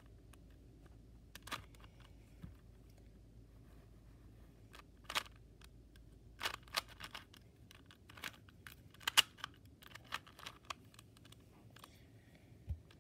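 Rubik's Cube layers being turned by hand, irregular plastic clicks and clacks as the faces snap round, some in quick runs of several turns.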